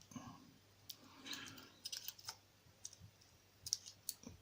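Faint, scattered small clicks and light scraping from handling a thin metal shim against a small CISA oval lock cylinder while trying to slip it in to gut the lock.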